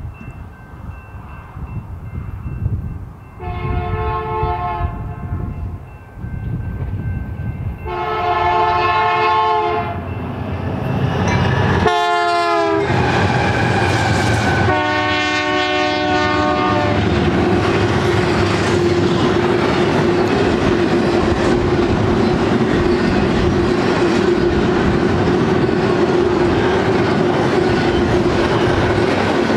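BNSF GE ES44C4 locomotive 4720's multi-chime air horn sounding four blasts, long, long, short, long, the standard grade-crossing warning, its pitch dropping as the locomotive passes. The locomotives' diesel engines go by, then the double-stack container cars roll past with a steady rumble and wheel clatter and a faint steady ringing tone.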